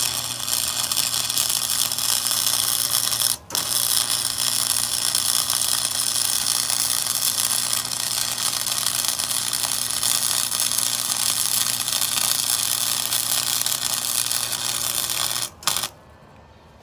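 Chicago Electric Flux 125 flux-core wire welder laying a bead: the arc runs steadily over a low hum, breaks off briefly about three and a half seconds in, then restarts and runs until it stops about a second before the end.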